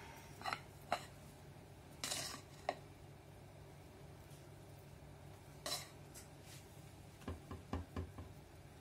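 A metal spoon clinking and scraping against a glass mixing bowl and a loaf tin as thick cake batter is spooned out: scattered light taps, with a quick run of taps near the end.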